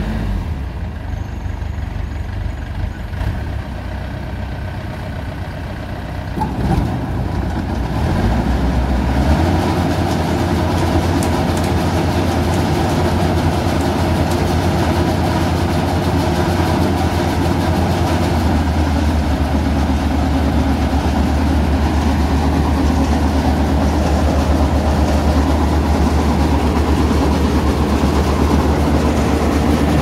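Maxxi HD 85 combine harvester's engine running, rising about eight seconds in to a higher, steady run that drives its belts and pulleys. This is a test run after the grain auger and grain pulley were repaired.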